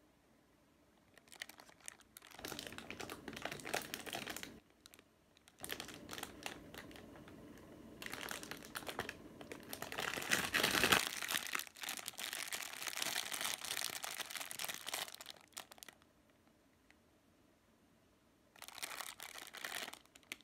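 Clear plastic bread wrapper crinkling as hands handle the packaged bun and turn it over. It comes in several stretches with short pauses and is loudest about halfway through.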